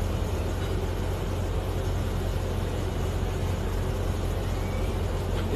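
Steady low drone of a commercial kitchen's exhaust hood fans, with a constant hum and rushing air and no distinct knocks or clatter.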